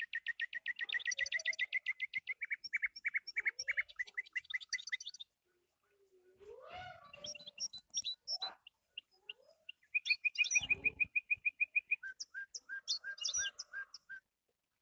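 A bird calling in fast runs of short, sharp chirps, several a second. About halfway there is a pause with a few rising whistled notes, then another quick run of chirps.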